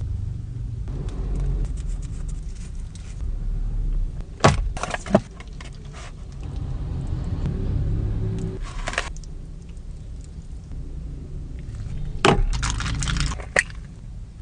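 Low, steady car rumble, broken several times by sharp clinks and rattling clatter.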